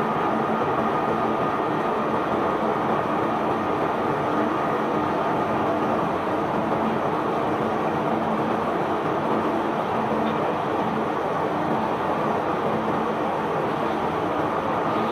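Barge unloading machinery running steadily as limestone cargo is discharged. The sound is a continuous rumbling, rushing noise with a faint steady hum under it, level throughout.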